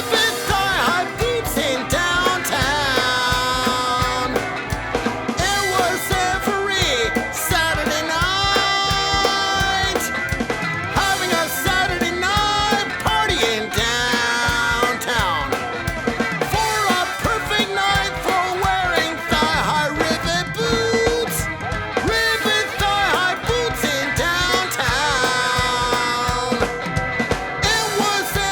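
Music: a rock-style song with drums and a sung vocal line.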